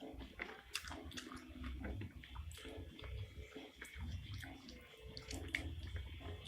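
Close-up eating sounds: wet chewing and smacking of spicy meatballs in sauce, with repeated soft thuds and small clicks.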